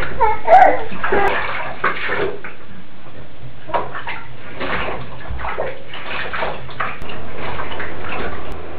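Bath water splashing and sloshing in a bathtub as a baby is washed in a bath seat, with a short vocal sound near the start.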